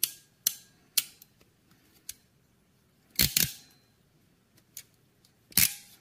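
Ratcheting crimping tool squeezed onto a red insulated crimp connector: three sharp clicks about half a second apart, then two louder clacks roughly two seconds apart.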